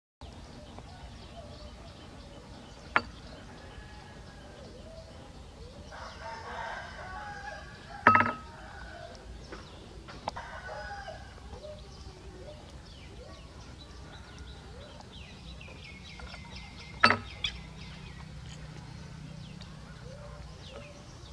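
Chickens calling in the yard, a rooster crowing among hens clucking. Three sharp knocks are heard, about three, eight and seventeen seconds in, and the last two are the loudest sounds.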